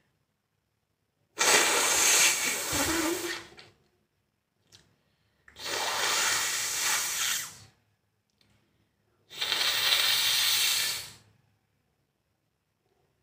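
A person blowing their nose hard three times, each blow about two seconds of rushing air through the nose, with short pauses between.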